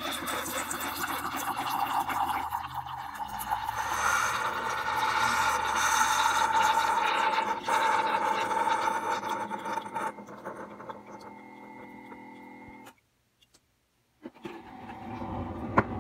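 Coffee maker running after its button is pressed: a steady hum with hissing that dies down about ten seconds in and then cuts off.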